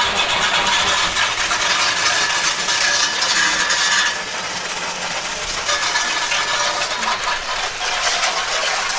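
Garden hose spraying water onto a metal grill, rinsing off oven cleaner; the spray noise drops and changes about four seconds in.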